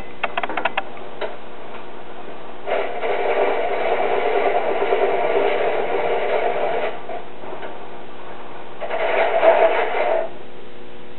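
Antique "The Leader" treadle lathe turning wood, a hand-held turning tool scraping into the spinning workpiece in two cuts: a longer one of about four seconds and a shorter one near the end. A few sharp clicks come right at the start.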